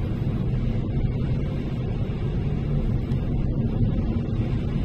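Steady low rumble of a car driving, engine and road noise heard inside the cabin.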